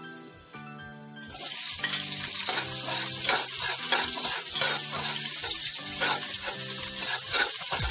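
Hot oil in a cooking pot starts sizzling about a second in as pieces of food go in, then keeps sizzling loudly while a spatula stirs them.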